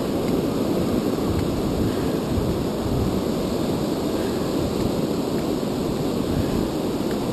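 Steady rush of wind buffeting the microphone, mixed with the wash of surf breaking on the beach.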